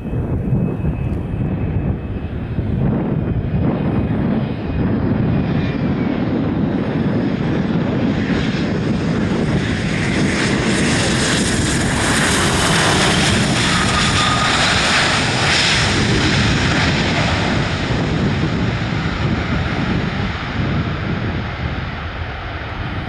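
Canadair CRJ-900 regional jet's two rear-mounted General Electric CF34 turbofans as it lands and rolls out along the runway past the listener. The jet noise swells to its loudest about halfway through, then fades as the aircraft rolls away.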